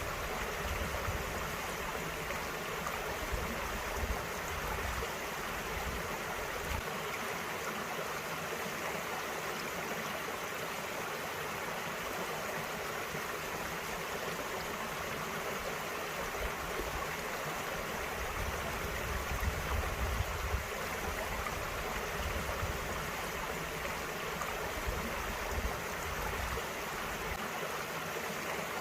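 A small valley stream running steadily, an even rush of flowing water, with a low rumble that comes and goes.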